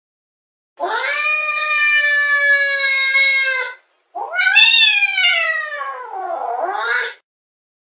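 Domestic cat yowling: two long, drawn-out calls, the first held fairly level for about three seconds, the second rising, falling and then swooping back up at its end.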